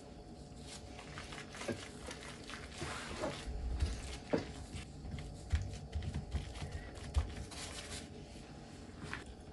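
Gloved hands folding a thawed cabbage leaf over minced meat and pressing it flat on a wooden cutting board: soft crinkling and rustling of the leaf, with a few dull knocks on the board between about four and seven seconds in.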